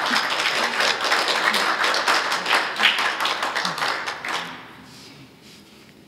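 Audience applauding at the end of a lecture; the clapping dies away about four and a half seconds in.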